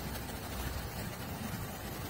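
Distant jet airliner climbing out after takeoff: a steady low rumble of its engines with a faint hiss.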